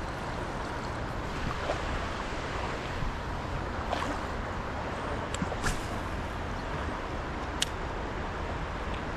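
Steady rush of flowing river water, with a few scattered sharp clicks.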